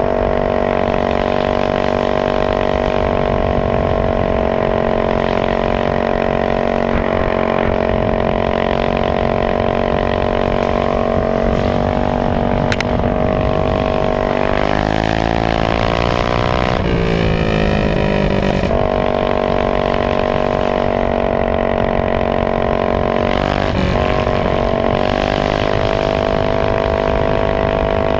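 Modified GX160 single-cylinder four-stroke minibike engine running at high, steady revs at speed. About halfway through the revs waver and dip for a few seconds, then settle back to the same steady pitch.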